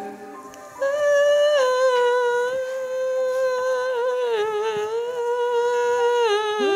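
An elderly woman's voice holds one long note in a singing exercise. It starts about a second in, steps down slightly soon after, and wavers near the end.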